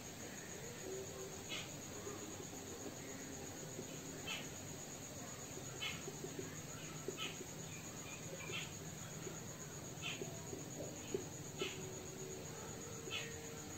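Marker pen tapping and squeaking faintly on a whiteboard while dots are drawn, a short tick every second or so, over a steady high-pitched pulsing trill in the background.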